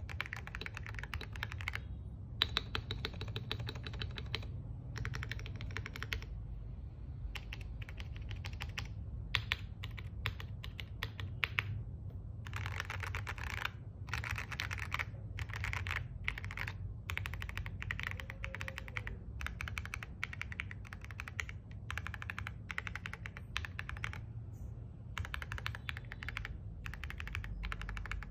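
Star75 mechanical keyboard with Jelly Strawberry V3 switches and MSA-profile keycaps being typed on in quick bursts of keystrokes, with brief pauses between runs.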